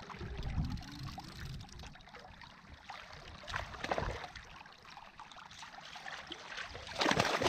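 Water trickling and lapping around a kayak hull, with two brief louder surges of noise, about four seconds in and near the end.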